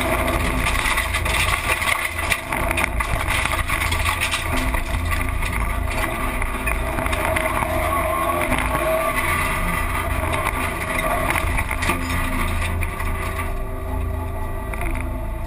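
Rally car's engine running under load with road and tyre noise, heard from inside the cockpit. Near the end the rushing noise drops away, leaving a steadier engine note.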